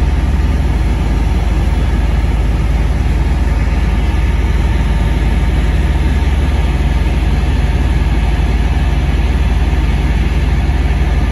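A boat's heavy engine running steadily: a loud, even low drone with a constant hum.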